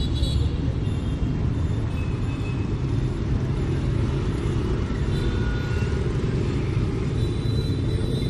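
Steady low rumble of street traffic, motorbikes and cars passing.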